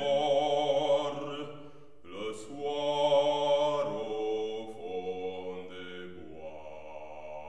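A bass singing a French art song with vibrato over grand piano accompaniment, pausing briefly about two seconds in and then singing one more phrase. From about four seconds in the piano carries on alone with held chords.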